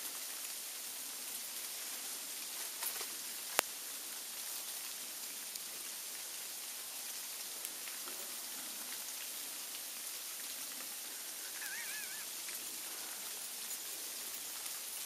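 Sleet falling on dry leaves and grass, a steady fine hiss. One sharp click cuts through about a quarter of the way in, and a short high warbling chirp sounds about three quarters of the way through.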